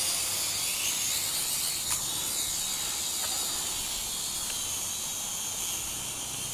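Syma X5H quadcopter's motors and propellers whirring, heard as a steady high hiss with faint wavering pitch. The motors are working hard to lift the added weight of a keychain camera.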